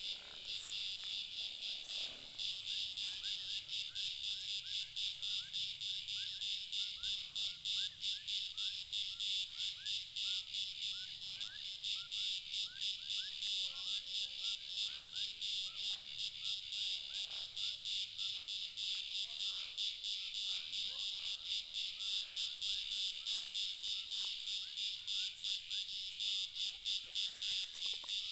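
A dense chorus of frogs and insects: a high, pulsing trill at about four pulses a second, with short rising chirps over it.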